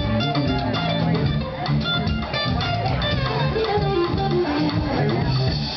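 Live blues-rock band playing, with electric guitar to the fore over bass.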